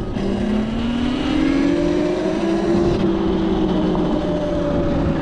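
Electric bike's motor whine rising in pitch as it speeds up over the first second or so, then holding steady, over a low rushing rumble of wind and road noise.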